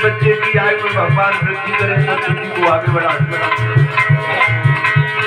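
Live devotional music with a steady drum beat of about two to three strokes a second, a shaker, and held melody notes over it.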